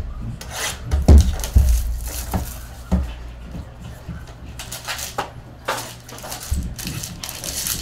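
Foil trading-card pack wrapper crinkling and tearing as it is handled and opened, in irregular crackles.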